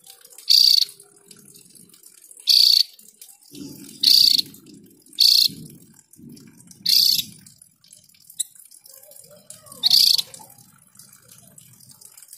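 Opior jawa (Javan grey-throated white-eye) giving short, harsh, high-pitched calls, six in the space of a dozen seconds, one every second or two.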